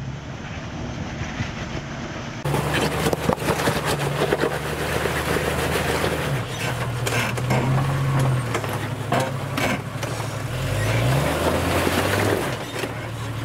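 Jeep Cherokee XJ's engine working up a steep, loose rocky trail. A steady engine hum gives way about two seconds in to a louder stretch where the revs rise and fall several times, while the tyres crunch and scrape over loose rocks.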